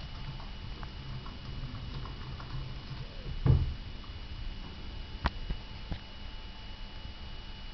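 Sleeping Cavalier King Charles Spaniel snoring softly and unevenly, with one louder snore about three and a half seconds in. A few sharp clicks follow near the middle.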